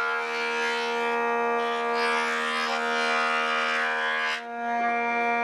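Thickness planer running with a steady high whine, and the hiss of its cutterhead planing a glued-up wooden strip panel; the cutting hiss stops about four and a half seconds in, leaving the machine running empty.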